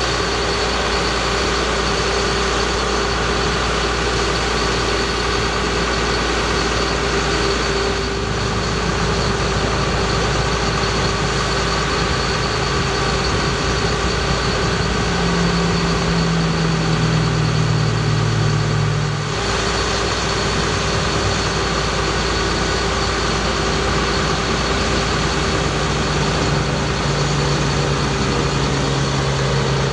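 Bucket truck's engine running steadily at idle while the Terex Hi-Ranger aerial boom is raised and extended by its hydraulics. A deeper hum comes in about halfway through and again near the end.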